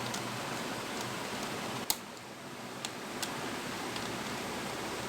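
A screwdriver loosening the heat-sink screws of an all-in-one PC: one sharp click about two seconds in and a couple of lighter ticks, over a steady hiss.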